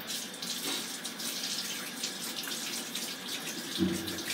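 Water running from a kitchen tap, a steady splashing hiss, with a brief low clunk near the end.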